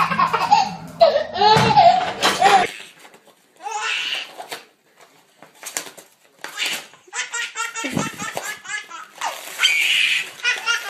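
A baby laughing in repeated fits of giggles and belly laughs, with short pauses between the bursts.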